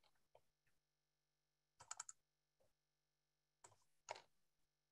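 Faint, scattered clicks and taps on a computer keyboard and mouse, in small bunches of two to four, the loudest about two seconds and four seconds in, as a screen share of presentation slides is started.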